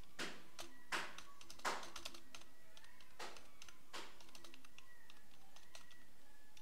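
Computer keyboard being typed on at an uneven pace, a quick run of soft key clicks broken by a few louder strokes in the first four seconds.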